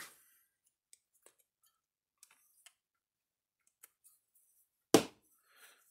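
Faint, scattered ticks of a plastic-cased capacitor and its metal spade terminals being handled, then one sharp, loud click about five seconds in.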